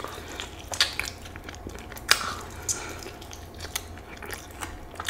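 A person chewing and biting into a fried chicken wing close to the microphone, with irregular wet clicks and smacks between quieter chewing.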